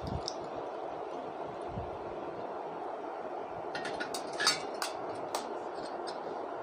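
A metal ladle scraping and clinking against a pan as fried tempering is tipped onto rice, with a few sharp clinks in the second half. A steady background hum runs underneath.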